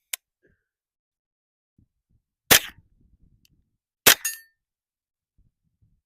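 Two shots from an HK MP5 rifle in .22 LR, about one and a half seconds apart, each a sharp crack with a short ringing tail. They are fired to check the rifle's zero after a sight adjustment.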